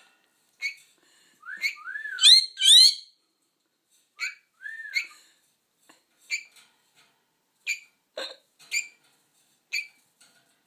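Senegal parrot whistling: a few swooping up-and-down whistles about two seconds in, followed by a string of short, sharp chirps about once a second.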